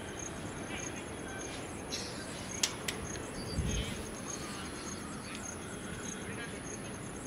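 Outdoor ambience with insects chirping in a steady, evenly repeating high pulse. About two and a half seconds in there are two sharp clicks close together, followed by a brief low rumble.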